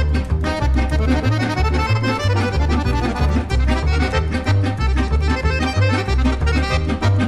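Instrumental music with a busy, changing bass line under dense sustained melody notes.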